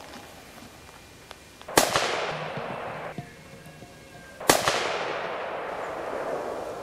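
Two rifle shots nearly three seconds apart, each a sharp crack followed by a long rolling echo that fades over a couple of seconds. Both shots hit a large wild boar.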